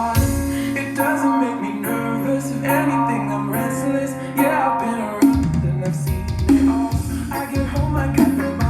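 Pop song playing, with a sung vocal over a steady beat, bass and instruments.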